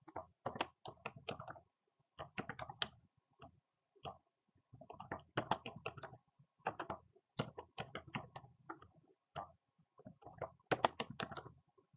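Computer keyboard typing: quick, irregular runs of keystrokes with short pauses between them.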